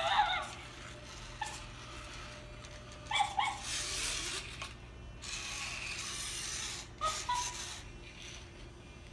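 Robotic toy chimpanzee giving short electronic chimp calls, three brief ones: at the start, about three seconds in and about seven seconds in. Between them, from about five to seven seconds in, there is a steady whir of its motors as it moves and raises its arms.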